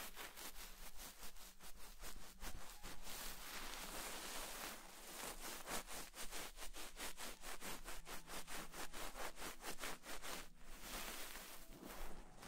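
Fluffy white faux fur being rubbed and stroked right against a microphone, making a quick run of scratchy rustling strokes, several a second, with a brief pause near the end.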